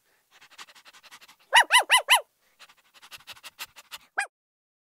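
Small dog yapping: four quick, high yips in a row, then a single one near the end, with faint soft clicks in between.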